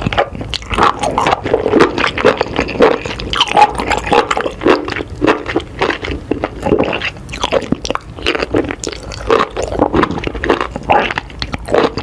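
Close-miked, ASMR-style wet squishing and clicking sounds in a dense, unbroken run of short smacks.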